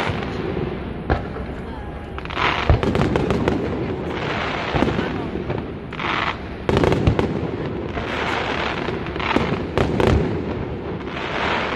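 Aerial firework shells bursting in a display: a string of sharp bangs, with bursts of crackling hiss between them.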